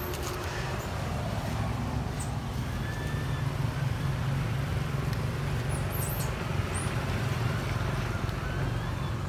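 Steady low outdoor rumble with a few faint, brief high squeaks over it.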